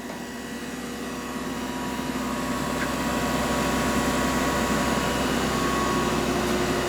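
Chevalier CGP-816 CNC cylindrical grinder running its automatic cycle: a steady machine hum with several steady tones from the spinning grinding wheel, hydraulics and work head, growing louder over the first few seconds and then holding steady.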